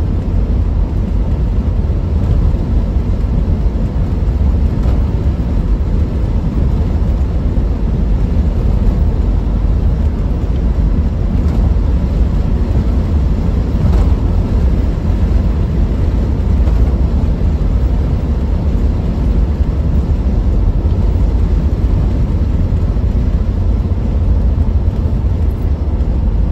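Triumph Stag's 3.0-litre V8 and its tyres heard from inside the cabin while cruising: a steady low rumble that keeps an even pace throughout.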